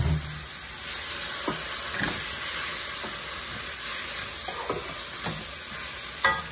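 Pea sprouts sizzling on high heat in a stainless-steel wok as a wooden spatula stirs and tosses them, with light scrapes and taps of the spatula on the pan every second or so and a sharper knock near the end.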